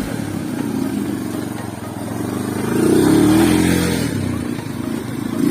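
Motorbike engine revving under load; its pitch and loudness climb to a peak about three seconds in, then ease off.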